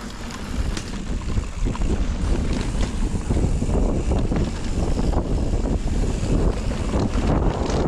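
Wind rushing over the microphone of a mountain biker riding downhill fast, with a low rumble and frequent small knocks and rattles from the bike going over rough trail. It grows louder over the first couple of seconds as speed builds.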